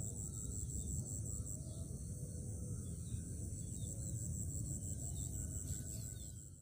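Outdoor pond-side ambience: a steady low rumble and an insect's thin high trill, pulsing quickly for the first second and a half, then held steady.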